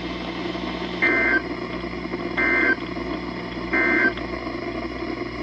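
NOAA Weather Radio EAS/SAME end-of-message signal: three short two-tone digital data bursts, about a second and a third apart, marking the end of the weekly test broadcast. Steady radio hiss and a low hum sit under the bursts.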